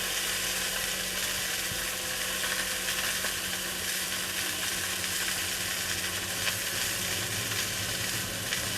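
Sausages frying in a pan, giving a steady sizzle. A steady low hum runs underneath.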